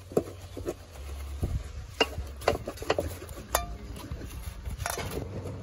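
A wooden spatula stirring and turning shredded cabbage in an aluminium saucepan, with scattered knocks against the pot, a few ringing briefly.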